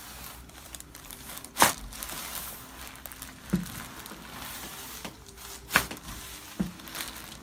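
Sharp cracks during a chiropractic adjustment, the joint pops of spinal manipulation: four in all, the loudest about a second and a half in and near six seconds in, over a crinkling rustle.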